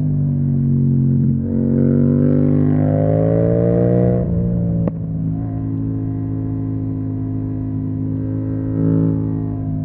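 Yamaha MT-07's parallel-twin engine through an Akrapovic exhaust, climbing in revs under throttle and dropping sharply at a gear change about four seconds in, with a single click just after. It then runs steadily at lower revs, with a short rise and fall near the end.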